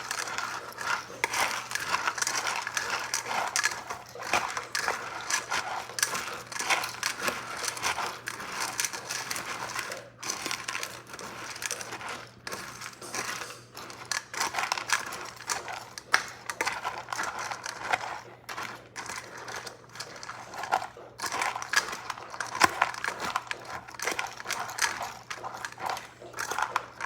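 A dog eating dry kibble mixed with egg from a bowl: dense, irregular crunching and small clicks of food against the bowl, with a few brief pauses.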